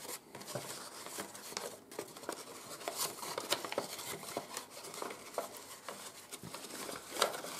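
A folded sheet of plain 80 g/m² office paper rustling and crinkling as hands reshape and tuck its layers, with scattered small crackles and clicks.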